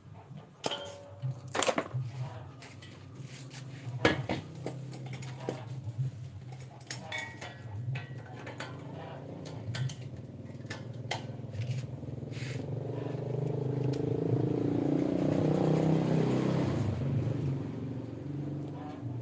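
A small motor hums steadily while metal tools click and tap. Past the middle, a rushing noise swells up, then fades again.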